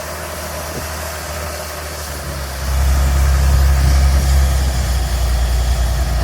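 Diesel engine of the tractor pulling a grain buggy, running steadily and getting louder about two and a half seconds in, with wind rushing over the microphone.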